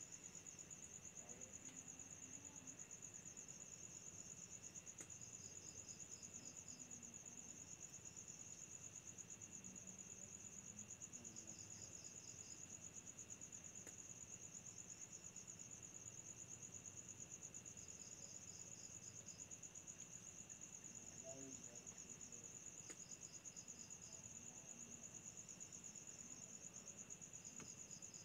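Faint night chorus of crickets. One trills continuously at a high pitch, while another gives short chirps of about five pulses every five or six seconds, over a steady fainter insect whine lower down.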